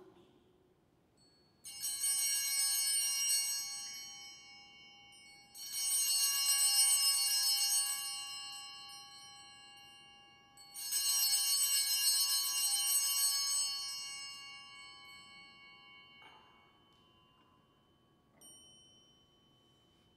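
Altar bells rung three times, each a shimmering cluster of high tones that fades over a few seconds, marking the elevation of the chalice at the consecration.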